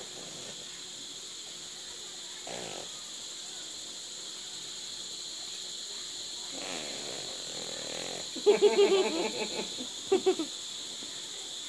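Crickets chirring steadily throughout. From about six and a half seconds in, a baby vocalizes, with a louder, rapidly pulsing burst of babble about eight and a half seconds in and a shorter one about a second and a half later.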